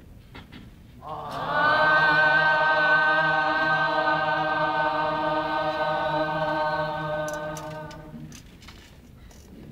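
Balinese kecak chorus, many voices together holding one long chanted note that swells in about a second in, holds steady and fades away near the end.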